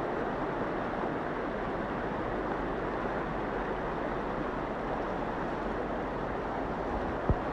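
Floodwater rushing steadily across a road, with one short knock near the end.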